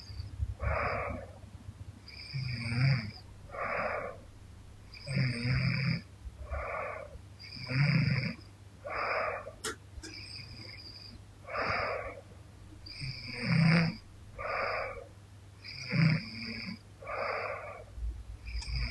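A young woman snoring lightly in her sleep, with noisy breaths in and out about every two and a half seconds and a low rattle on many of the breaths. A single sharp click comes about halfway through.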